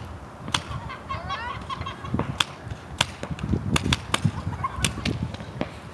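Paintball markers firing: a dozen or so sharp pops at irregular intervals, several close together about three to four seconds in.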